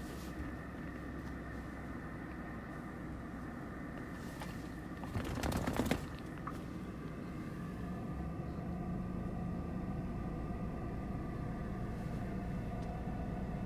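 Steady hum of a car idling, heard from inside the cabin. About five seconds in there is a brief, loud rustle as the Chihuahua's fur brushes against the microphone.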